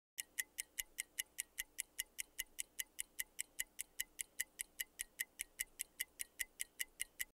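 Quiz countdown-timer sound effect: steady clock-like ticking, about five ticks a second, stopping shortly before the end.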